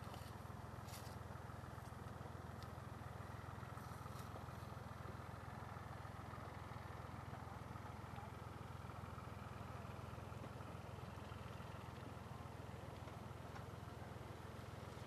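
Faint, steady low rumble of outdoor background noise, with a few soft clicks in the first few seconds.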